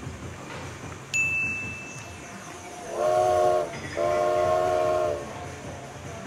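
A train-horn or train-whistle sound effect gives two long, steady blasts, the second longer than the first. About a second in, a short high beep-like tone comes just before them.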